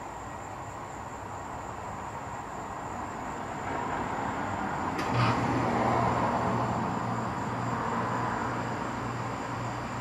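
A passing vehicle: the noise swells and then slowly fades. A sharp click comes about five seconds in, followed at once by a steady low hum, and a faint steady high tone runs throughout.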